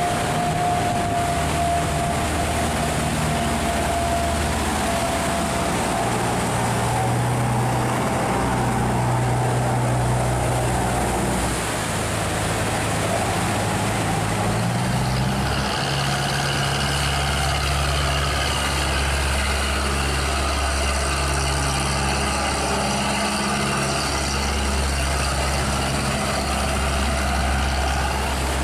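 Boat engines running steadily, the engine note shifting about six seconds in and again about halfway through as one boat gives way to the next. Under them is the rush of churning water at an open sluice gate.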